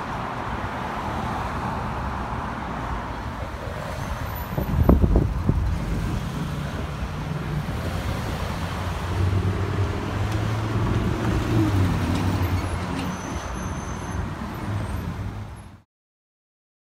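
Cars driving along a town street, with engines running and traffic noise; one engine note swells, louder from about nine seconds in. A brief loud thump comes about five seconds in, and the sound cuts off abruptly near the end.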